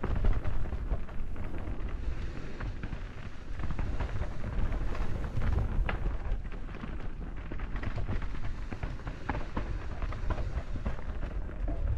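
Wind rumbling on the microphone of a camera worn on a mountain bike ride down a dirt forest trail. Steady scattered clicks and crackles run through it, from the tyres on dirt and the bike rattling over rough ground.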